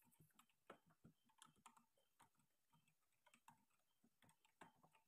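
Near silence, with a few faint, scattered ticks and knocks.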